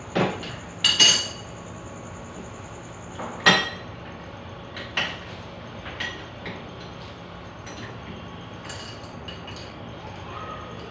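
Irregular metallic clinks and knocks: a handful of sharp strikes a second or more apart, each with a light ring, the loudest about a second in and about three and a half seconds in.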